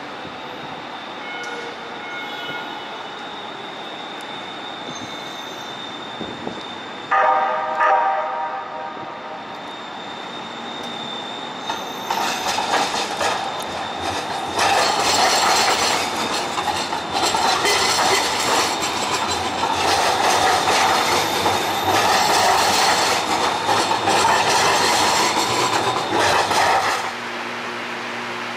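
Houston METRORail light rail train sounding its horn once, a short chord of several tones lasting about a second and a half, then running past at close range on street-embedded track; the loud wheel-and-rail noise of the pass lasts about fifteen seconds and cuts off abruptly near the end.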